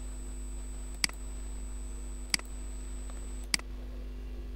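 Computer mouse button clicking three times, about a second apart, over a steady low electrical hum.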